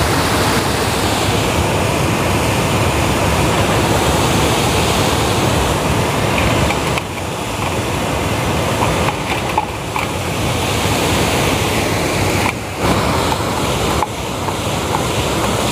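Steady rushing of water pouring over a lake's overflow weir.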